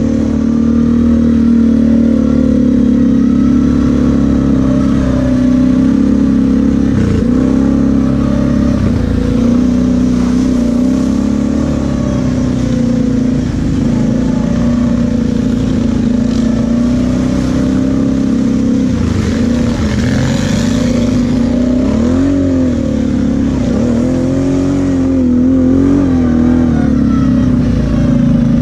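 Kawasaki KFX 700 V-Force quad's V-twin engine running steadily on the move, its pitch dipping and rising a few times as the throttle eases off and opens again.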